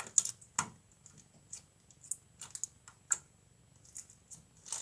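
Sticky glitter slime being pressed and pulled against a tabletop by hand, giving scattered small, sharp clicks and pops at an irregular pace.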